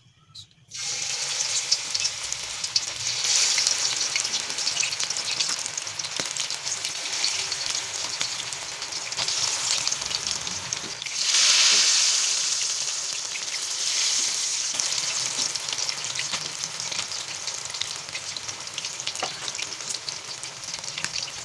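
Marinated chicken pieces going one by one into well-heated oil in a karahi, sizzling loudly as they deep-fry. The sizzle starts under a second in and holds steady, rising in surges as new pieces go in; the loudest surge comes about halfway through.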